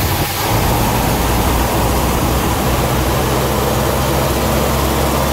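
1968 Pontiac Firebird's 350 V8 idling steadily just after starting, running smoothly. It is a barn-find engine that has sat since 1983.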